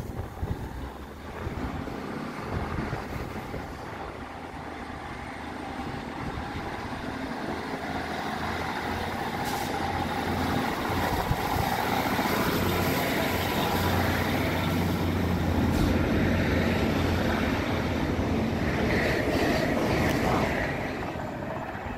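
Class 156 Super Sprinter diesel multiple unit with its Cummins underfloor diesel engines running, growing steadily louder through the middle as the train works under power, then fading near the end.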